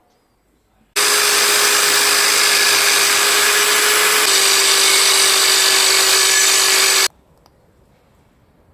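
A handheld power tool, such as a drill, runs steadily for about six seconds, starting and stopping abruptly. Its steady hum drops slightly in pitch about halfway through.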